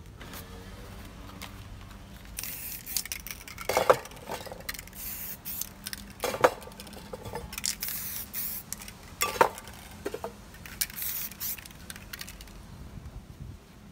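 Aerosol spray-paint can hissing in short bursts over a stencil, with three sharp clicks as the loudest sounds in between.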